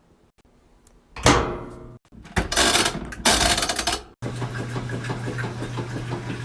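A washing machine being shut and started: a sudden ringing clunk, two loud rushing bursts, then the machine running with a steady low hum and a faint regular pulse from about four seconds in.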